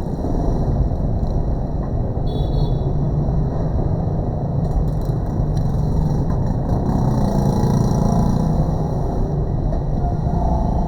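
Steady low rumbling noise with no clear strokes or rhythm.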